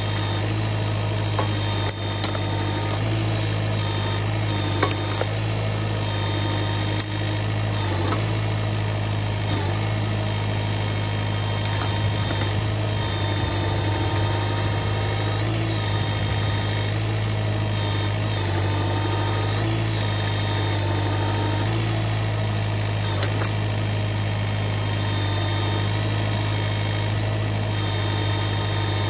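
Kubota MX5400 tractor's diesel engine running steadily at constant speed, with a few light knocks over it.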